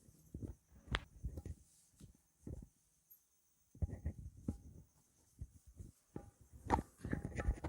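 Irregular soft knocks, taps and rustles of handling, with a couple of short pauses.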